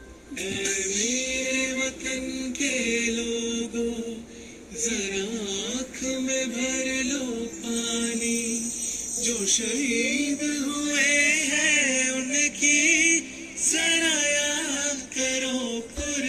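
A song with sung vocals: long held, wavering notes over a steady backing.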